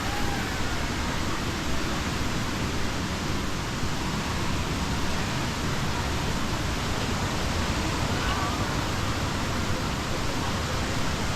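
Waterfall's steady noise of falling water, an even hiss with no breaks.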